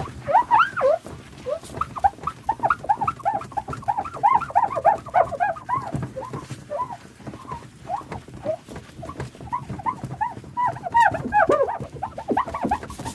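Paper towel being wiped over a glass mirror, squeaking in a quick, continuous run of short squeaks over the rubbing of the towel.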